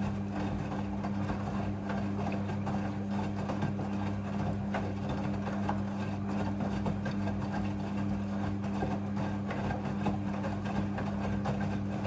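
Midea front-loading washing machine tumbling wet clothes in its drum during a water rinse: a steady motor hum over sloshing water.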